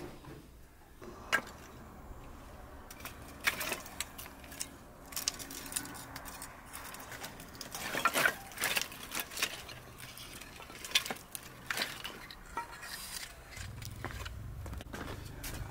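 Split dry firewood sticks clattering and knocking together as they are sorted and gathered up by hand, a scattered run of sharp wooden knocks that comes in bunches.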